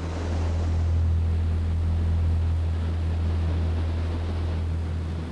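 Engine running: a steady low drone with some wind-like hiss, cutting off suddenly at the end.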